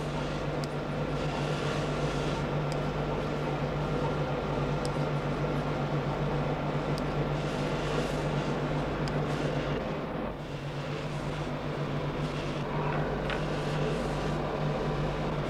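Steady low machine hum of workshop equipment, with faint light scrapes as an oil-soaked Arkansas stone is drawn along the cutting edges of steel scissor halves.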